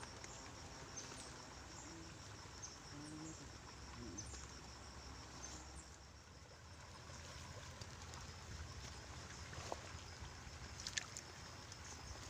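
Quiet outdoor ambience: a steady haze of flowing stream water with an insect chirping in a fast, even pulse, and a couple of sharp clicks near the end.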